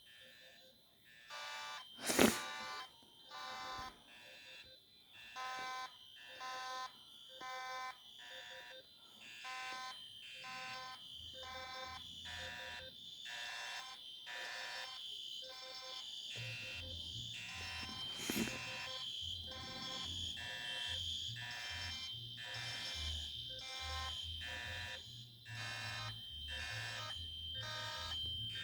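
Several fire alarm horns and sounders going off together, pulsing rhythmically over a steady high-pitched tone. A sharp click at about two seconds in is the loudest moment, with another around eighteen seconds. A low pulsing sound joins in about sixteen seconds in.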